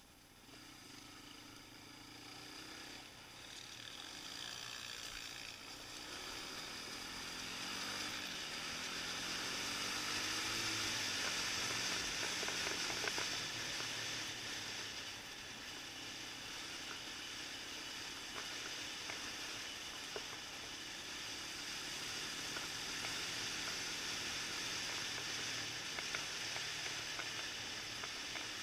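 Suzuki LTZ 400 quad's single-cylinder four-stroke engine accelerating along a dirt track, its pitch climbing several times over the first ten seconds or so, then running more evenly. A steady hiss of wind and tyres on gravel lies over it.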